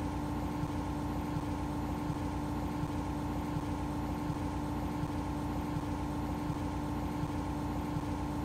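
A steady mechanical drone with a constant hum, engine-like, holding at one level throughout.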